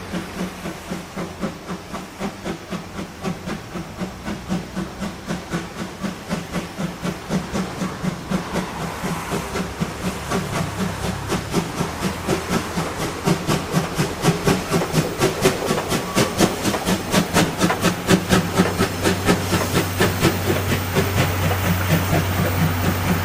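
Steam locomotive C11 123 working with a rhythmic exhaust chuff that comes steadily faster and louder, with steam hissing underneath, as the engine picks up speed.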